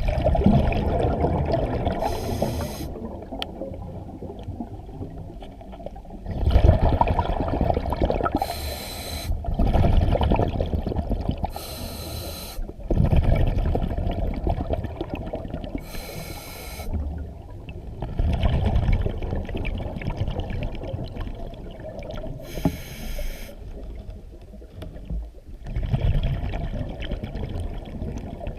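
Underwater sound: a low, swelling water rumble, with short bursts of exhaled bubbles from a scuba diver's regulator about every three to six seconds.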